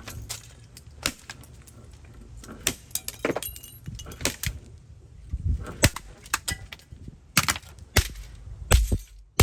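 Plastic 35mm film camera being smashed: a string of sharp cracks and knocks at uneven intervals, about eight hard hits.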